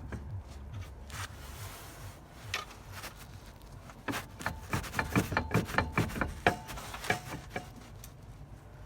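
Metal clicks and clunks from the ZAZ Slavuta's flywheel and clutch pressure plate being rocked by hand. They come in a quick uneven run from about four to nearly eight seconds in, some with a short metallic ring. They are the sign of a flywheel loose on the crankshaft.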